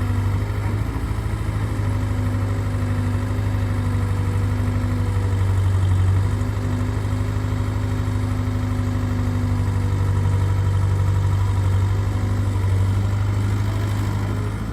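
Diesel engine of heavy earthmoving or farm machinery running steadily at a low throttle, with a brief swell in level about six seconds in and again near the end.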